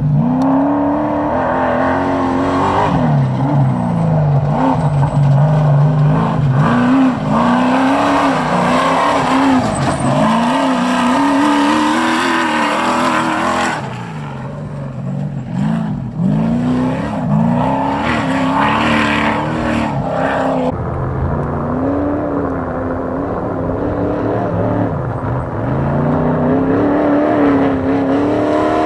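Off-road trophy truck engines at racing speed, revving up and lifting off again and again, the pitch rising and falling every second or two as the trucks work through rough dirt turns. The sound changes twice as different trucks come past.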